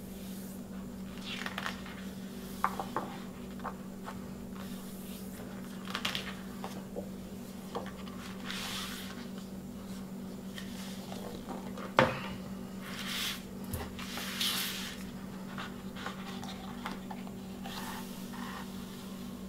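Paper and cardboard record packaging being handled by hand: a large printed insert and the LP jacket rustle and slide against each other and the table, with light taps and one sharp tap about twelve seconds in. Near the end, a vinyl LP slides out of its paper inner sleeve, over a steady low hum.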